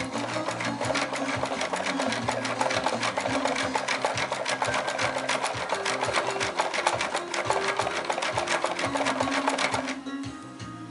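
Hand-cranked wooden scale model of a threshing machine, its mechanism clattering in a rapid, even run of clicks while the crank is turned. The clatter stops about a second before the end.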